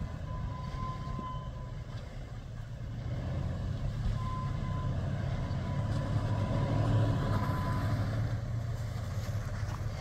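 Lifted pickup truck's engine running at low revs as it crawls through snow and slush, swelling louder midway. A thin high tone comes and goes twice.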